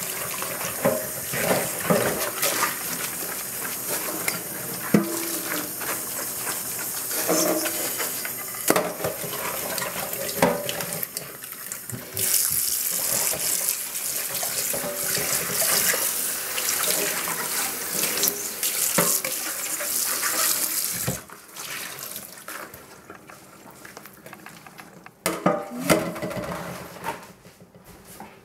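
Tap water running into and splashing in a small stainless steel saucepan in a stainless steel sink while the pan is scrubbed with a sponge, with clinks and knocks of the pan against the sink. The water rush grows louder and brighter a little before halfway, then falls away about three quarters through, followed by a few sharp knocks.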